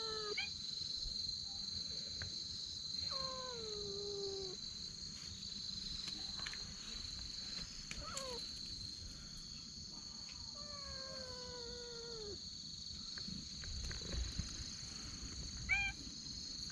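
A cat meowing again and again: two long, drawn-out meows that fall in pitch, with shorter meows between them.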